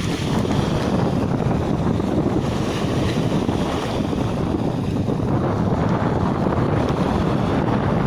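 Strong wind buffeting the microphone, a steady low rumble, over small waves breaking and washing up a sandy shore.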